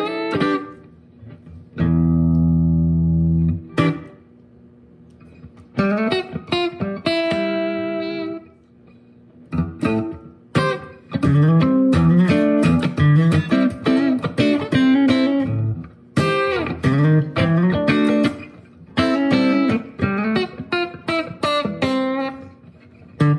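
Guitar played through a Sonicake Matribox II Pro multi-effects processor preset: a chord left ringing for about two seconds, then phrases of picked notes and chords with brief pauses between them.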